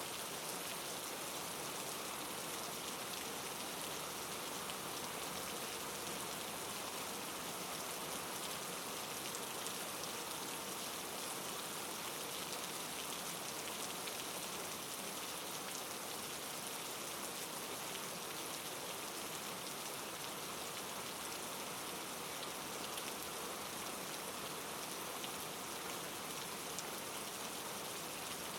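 Steady rain falling, an even hiss of many drops with fine pattering ticks.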